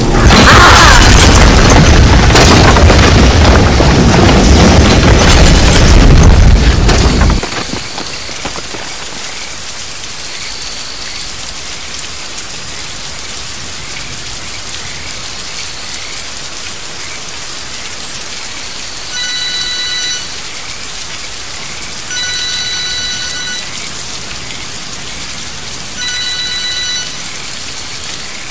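A loud low rumble cuts off suddenly about seven seconds in, leaving steady heavy rain. From about two-thirds of the way through, a mobile phone ringtone sounds in short electronic chimes about every three to four seconds, from a mud-covered feature phone ringing unanswered.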